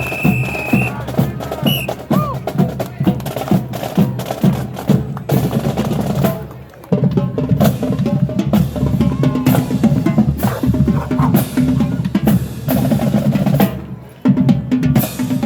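Marching band drumline playing, snare and bass drums beating a dense, driving rhythm with brief breaks about seven and fourteen seconds in. A short high whistle sounds right at the start.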